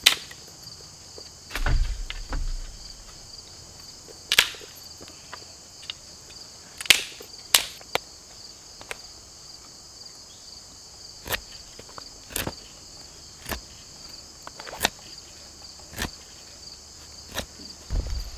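A steady, high-pitched insect chorus runs throughout, with about a dozen sharp, irregularly spaced wooden knocks and clicks from handling sticks during camp work. A couple of duller thumps come about two seconds in.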